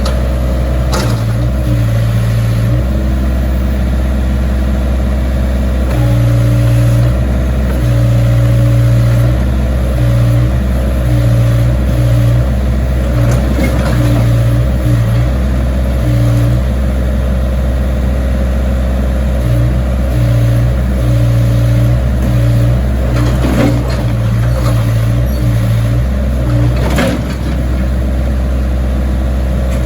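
Case backhoe's diesel engine running steadily, its pitch stepping up and down slightly every few seconds, with a few sharp knocks.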